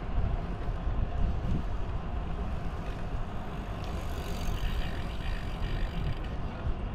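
Wind rumbling on the microphone of a moving bicycle, a steady low rush with no clear events.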